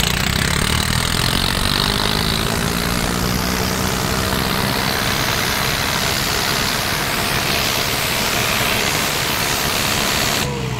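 Swaraj 855 tractor's diesel engine at full throttle, labouring under heavy load as it pulls in a tug-of-war with its front wheels reared up and black smoke pouring from the exhaust. The sound changes abruptly just before the end.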